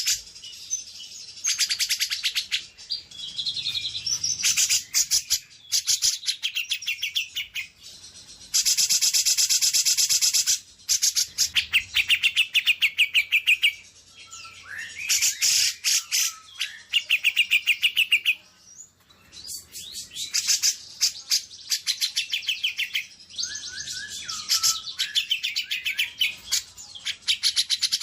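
Songbirds singing in fast, high chattering trills and buzzy rattles, as used in a masteran song-training recording. One long unbroken trill comes about nine seconds in, and a few short whistled slurs are mixed in around the middle and later.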